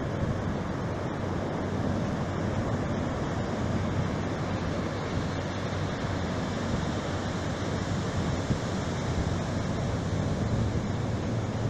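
Ocean surf washing onto a sandy beach, steady throughout, with wind noise on the microphone.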